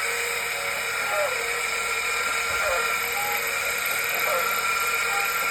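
Electric grinder with a grinding stone running steadily, used to grind back a rooster's spurs. A few short sliding squeaks come and go over the hum.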